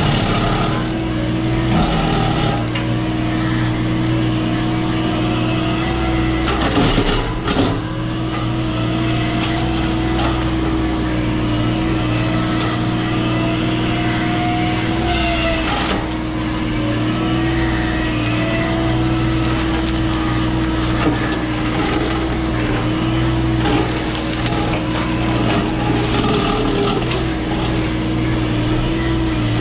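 A machine's engine running steadily with a constant droning hum. There is a brief clatter of knocks about seven seconds in, and a faint wavering whine partway through.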